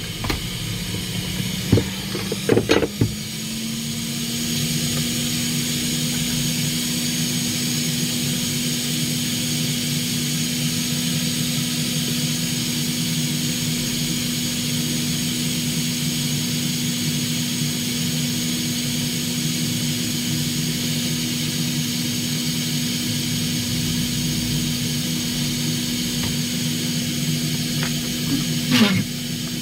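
Hot air rework station blowing steadily on a laptop motherboard: an even hiss of air with a steady hum from its blower. A few clicks come a couple of seconds in, the hum steps up slightly just after, and a short falling sweep comes near the end.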